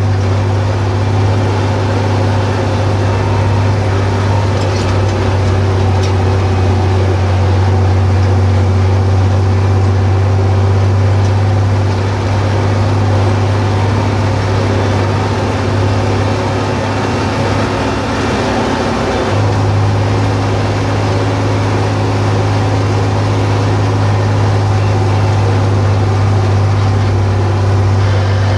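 John Deere 4020 tractor's six-cylinder engine running steadily at road speed, a loud, even drone heard from the cab, easing off slightly for a moment about two-thirds of the way through.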